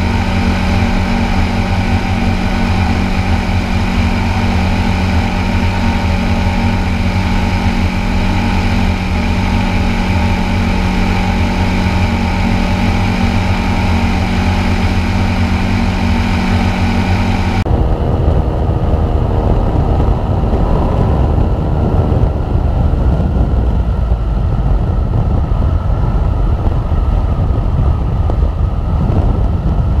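Pusher engine and propeller of a weight-shift light-sport trike running steadily at cruise, with wind rush over the microphone. About two-thirds of the way through, the sound changes abruptly to a rougher, windier rush with the engine drone fainter beneath it.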